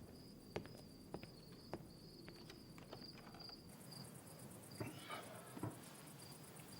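Crickets chirping steadily in a night-time outdoor ambience. A second, higher insect trill joins partway through. A few faint clicks and two soft knocks can be heard about five seconds in.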